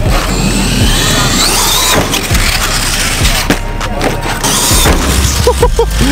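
Electric motor of a radio-controlled monster truck whining up and down in pitch as it accelerates and slows, its tyres rolling over asphalt.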